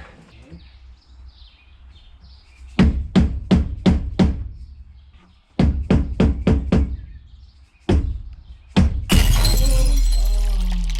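Mallet tapping a new windscreen into its rubber seal on a Toyota FJ40: a quick run of about five taps, a second run of about six, then two single blows. About nine seconds in, a loud crash as the windscreen glass shatters under a blow, and the noise dies away slowly.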